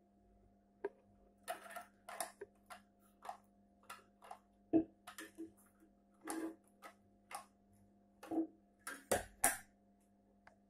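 Metal clinks, taps and knocks of a steel Wehrmacht gas mask canister being handled: the hinged lid swinging and shutting and the canister set down on a stool, in irregular sharp knocks of varying loudness.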